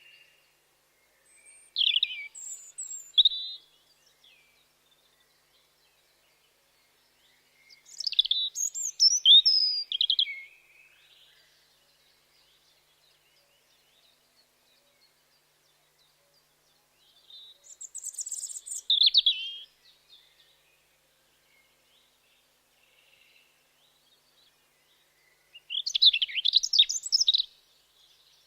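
European robin singing: four short, high phrases of quick rising and falling notes, separated by pauses of several seconds.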